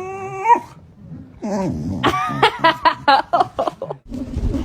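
A dog howls in a long, wavering whine that ends about half a second in. About a second later it gives another rising whine that breaks into a quick run of yips and whimpers.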